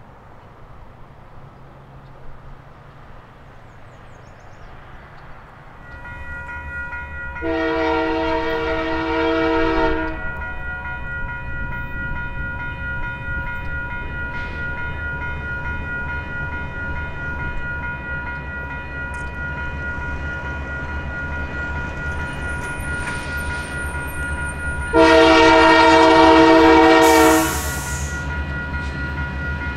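Diesel freight locomotive's air horn sounding two long blasts, one several seconds in and one near the end, over the steady low rumble of the approaching train.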